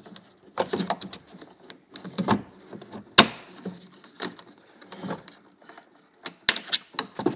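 Irregular clicks and knocks of plastic and metal door parts being handled and worked free inside a Land Rover Freelander's rear door, the sharpest knock about three seconds in.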